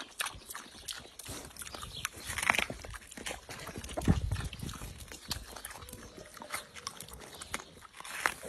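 Young pig eating watermelon, its jaws crunching rind and flesh in wet, irregular smacks and crackles, with a louder burst about four seconds in.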